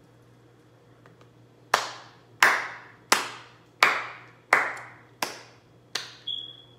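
One person clapping slowly: seven single hand claps evenly spaced, starting about two seconds in.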